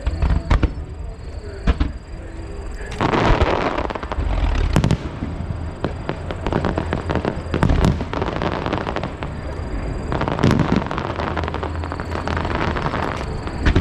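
Aerial fireworks shells bursting in a rapid string of sharp bangs, with a dense rushing noise filling the gaps between them from about three seconds in.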